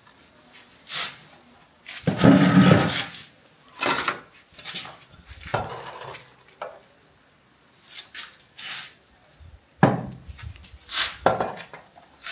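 Pots and cooking utensils being handled: a series of irregular clatters and knocks, the loudest and longest about two seconds in.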